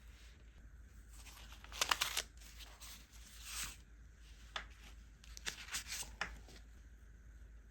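Paper and stationery being handled: a few short scratchy rustles of paper, then several light clicks and taps.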